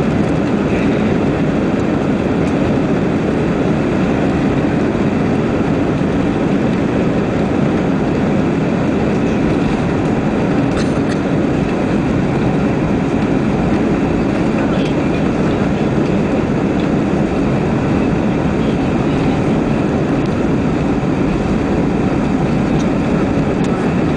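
Steady cabin noise of an Airbus A320 accelerating down the runway for takeoff, its engines at takeoff thrust.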